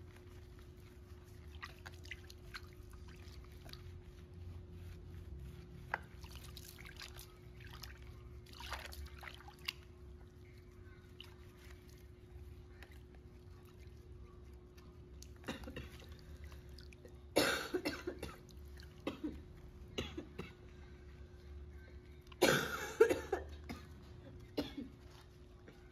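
Soapy water in a plastic basin sloshing, trickling and dripping as a baby monkey is washed and lathered by hand, with two short, louder noisy bursts near the middle and end. A faint steady hum runs underneath.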